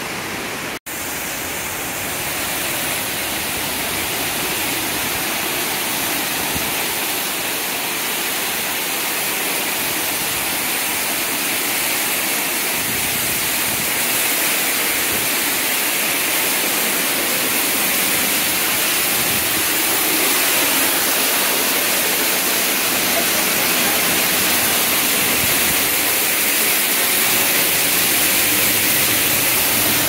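Mountain waterfall plunging down a cliff face: a steady, dense rush of falling water and spray that grows gradually louder as it is approached. The sound cuts out for an instant about a second in.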